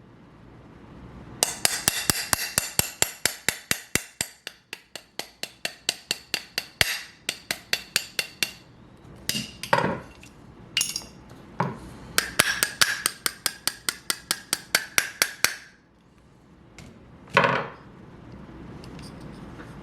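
Rapid light metal taps, several a second in two long runs, with a few heavier knocks between: a pin being tapped into an AR-15 lower receiver's trigger group.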